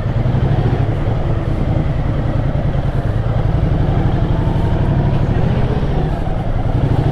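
Ducati Multistrada 1200's V-twin engine running steadily at low revs under the rider.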